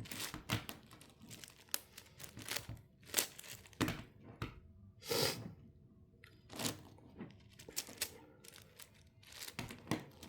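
Plastic layers of a 10x10 Rubik's cube being turned by hand: irregular clicks and short rasping scrapes, with one longer scraping turn about five seconds in.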